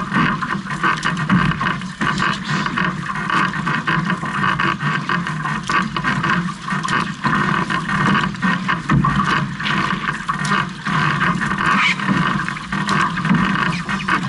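Water rushing and splashing along the hull of a six-person outrigger canoe (OC-6) under paddle, with irregular sharp splashes as the paddle blades enter the water.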